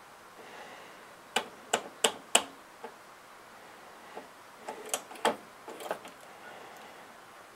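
Irregular sharp clicks and taps of small parts and tools being handled inside a pinball machine during adjustment. There is a quick run of four louder clicks about a second and a half in, then scattered softer ones.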